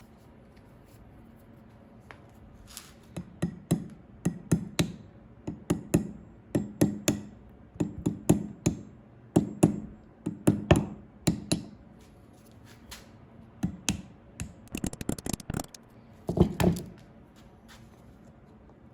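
Irregular sharp taps and knocks of hard objects, often in twos and threes, with a quick rattle of clicks near the end.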